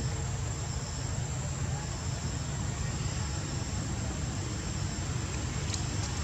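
Steady outdoor ambience: a constant low rumble and hiss, with faint insects trilling high in the background and one small click near the end.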